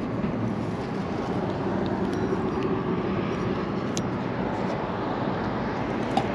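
Steady rumble of road traffic on a nearby bridge, with a low hum running through it and a couple of faint clicks.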